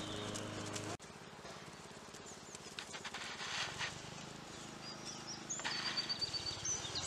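Quiet outdoor ambience: small birds chirping faintly, more often in the latter part, over soft, faint hoofbeats of a horse walking on sand. A steady hum cuts off abruptly about a second in.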